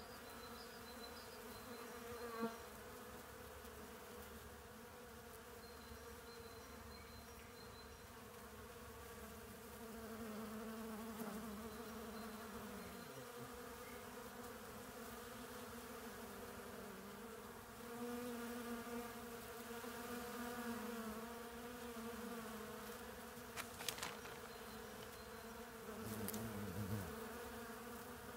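Bees buzzing in a steady drone that swells now and then as one flies close past the microphone, its pitch sliding down as it goes. Two brief clicks.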